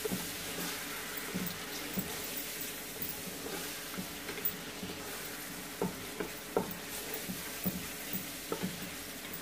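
Onion-and-spice masala sizzling steadily as it fries in oil in an aluminium stockpot, stirred with a wooden spoon that knocks against the pot several times in the second half.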